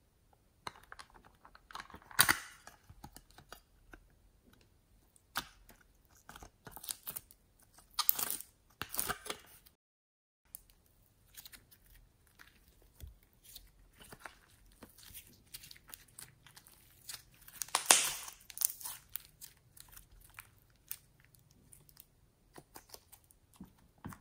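Hands squeezing and stretching soft slime, making irregular sticky crackling and popping sounds, with a few louder bursts among quieter squishes.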